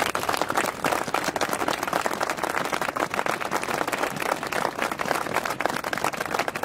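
A crowd applauding: many people clapping at once, a dense continuous patter of hand claps.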